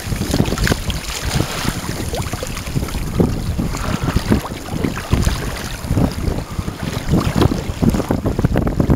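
Wind buffeting the microphone in irregular gusts, with small waves lapping in shallow sea water.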